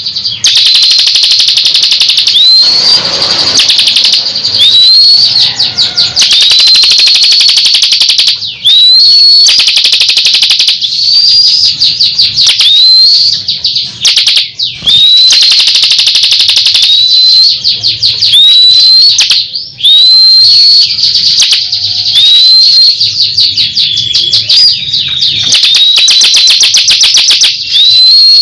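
A songbird singing loudly on and on, as on a masteran training recording. About every one and a half to two seconds it repeats a phrase: a rising whistled note followed by a fast, high chattering trill.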